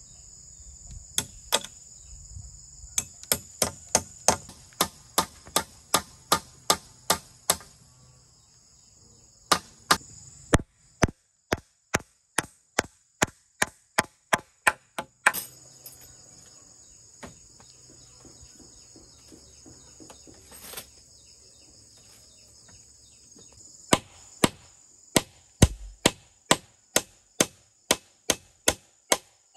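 A blade chopping bamboo in quick, even strokes, about three a second, in three runs with pauses between. A steady, high drone of crickets or other insects runs under the strokes and drops out for a few seconds in the middle.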